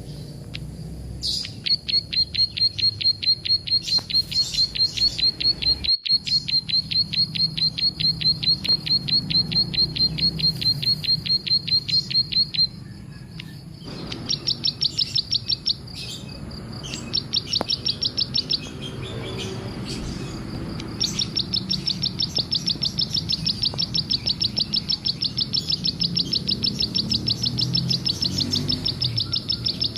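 Bar-winged prinia (ciblek) singing: long runs of rapid, evenly spaced high chirps that break off twice for a second or two and start again.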